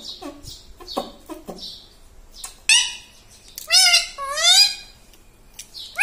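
Indian ringneck parrot calling: one loud, pitch-bending squawk about two and a half seconds in, then two more back to back about a second later, with softer, lower chatter before them.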